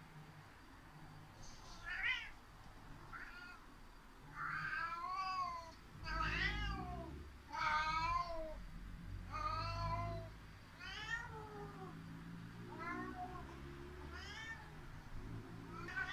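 Tabby domestic cat meowing over and over in a hoarse voice, about a dozen loud calls a second or so apart, each sliding up and then down in pitch. The owner takes them for grumbling complaints.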